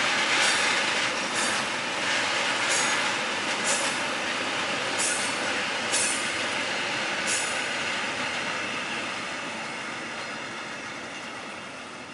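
Freight train of hopper wagons rolling past, its wheels clacking over rail joints about once a second over a steady rumble. The clacks stop and the sound fades as the last wagon goes by near the end.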